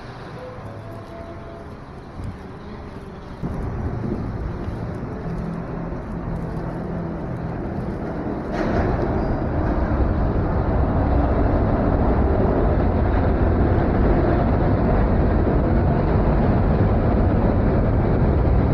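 Loud steady rumble of an elevated train running on the steel structure overhead, growing about three seconds in and swelling sharply about eight and a half seconds in, then holding loud.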